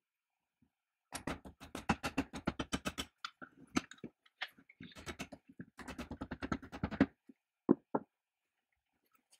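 Soft-faced mallet tapping the painted aluminum motor housing and end shield of a chain mortiser to seat it: two quick runs of light taps, about ten a second, then two louder single knocks near the end.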